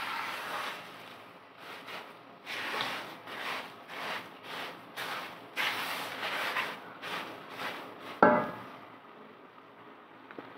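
A black-headed spatula scraping and stirring a dry, crumbly mixture of roasted flour, semolina and sugar in a nonstick wok, in repeated strokes about two a second, with a single louder clack about eight seconds in.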